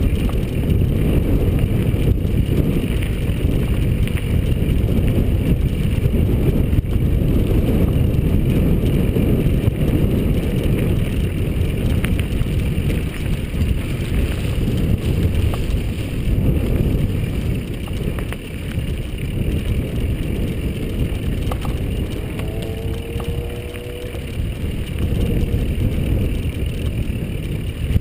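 Mountain bike rolling along a dirt singletrack: a steady low rumble of tyres on the trail mixed with wind rushing over the microphone of the moving camera.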